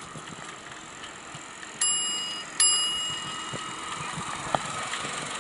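Bicycle bell rung twice, under a second apart, each ring a bright ding that fades slowly, over the steady noise of riding.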